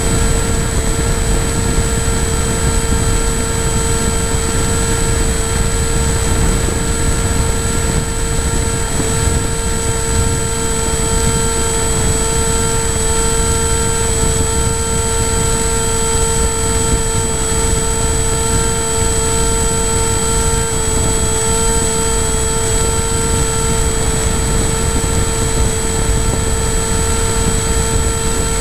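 FPV model aircraft's motor and propeller running at a steady pitch, a constant whine, heard from the onboard camera with wind rushing over its microphone.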